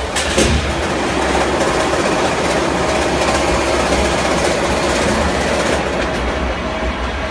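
Spindleless veneer peeling lathe running, a loud, steady mechanical noise with a low hum underneath.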